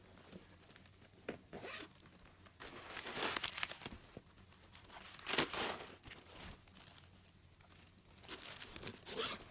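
Zipper on a bag being pulled, several short rasping pulls with pauses between them.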